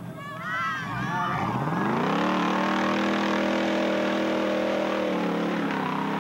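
Four-wheel-drive truck engine revving up over about a second and then holding at high revs for about three seconds, easing off slightly near the end. Brief voices are heard at the start.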